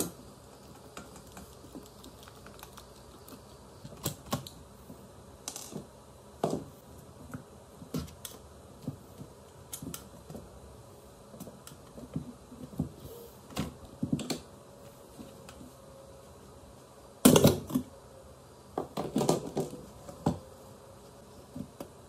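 A screwdriver and hands clicking, scraping and knocking on the plastic handle and steel body of an electric kettle as it is taken apart. The sound is irregular clicks and taps, with two louder bouts of clatter about three-quarters of the way through.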